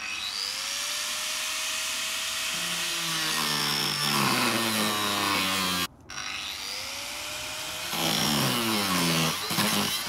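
Angle grinder spinning up with a rising whine, then cutting into the metal lock of an old trunk, its pitch falling as the disc bites and takes load. This happens twice, broken off abruptly about six seconds in.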